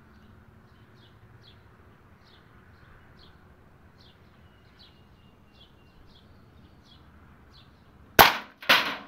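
Air Venturi Avenger .22 PCP air rifle fired once about eight seconds in, a sharp crack, followed about half a second later by a second loud crack as the pellet strikes the target. Faint chirping repeats about twice a second before the shot.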